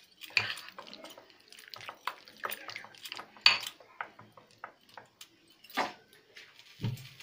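Metal spoon stirring chicken pieces in a thick yogurt-and-spice marinade in an enamel bowl: irregular scrapes and clinks of the spoon against the bowl, with a low knock near the end.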